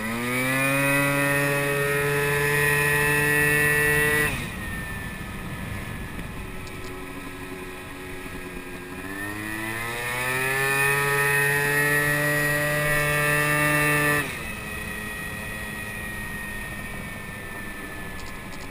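Moped scooter engine opened up twice. Each time the revs climb quickly and hold steady for about four to five seconds, then drop off sharply as the throttle is closed, about four seconds in and again about fourteen seconds in. Between the two pulls the scooter coasts with a steady rush of wind noise.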